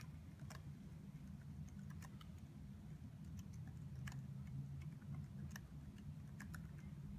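Laptop keyboard keys tapped in scattered, irregular single strokes, about a dozen over several seconds, as a MAC address is typed into a web form, over a low steady room hum.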